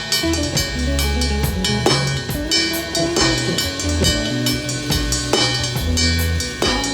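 A live band playing an instrumental groove: drum kit with kick and snare keeping a steady beat over a held bass line and sustained keyboard chords.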